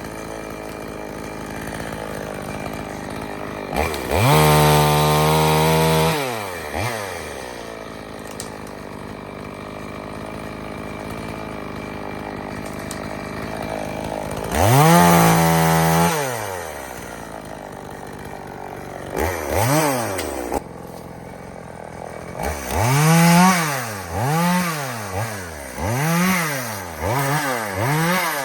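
Two-stroke EFCO chainsaw idling, twice revved up and held high for about two seconds, then blipped in a series of short revs near the end.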